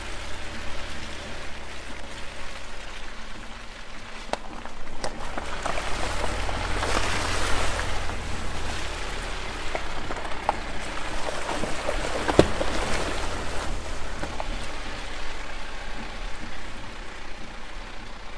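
Camper van tyres crunching slowly over a rough gravel and dirt forest track, over a steady low engine rumble, with a few sharp knocks from the rough surface, the loudest about twelve seconds in.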